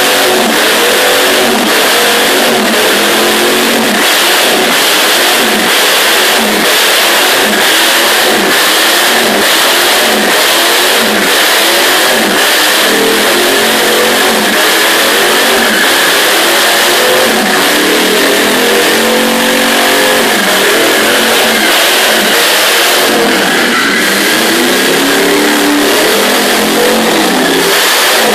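Holden V8 in a ride-on lawn mower revving hard, its pitch rising and falling over and over, during a tyre burnout with the rear tyres spinning and squealing on concrete.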